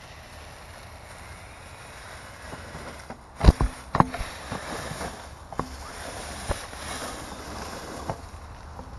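Scale RC crawler truck knocking and clattering against the terrain: a tight cluster of sharp knocks about three and a half seconds in, then a few single knocks, over a steady rushing noise.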